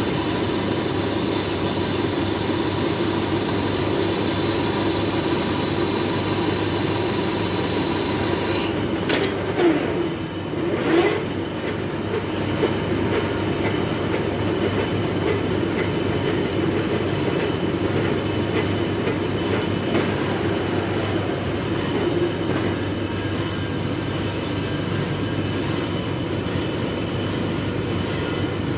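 Metal lathe running as it turns a large iron workpiece: a steady, dense mechanical rumble. A high-pitched whine rides over it for about the first nine seconds and then cuts off suddenly, followed by a couple of short knocks.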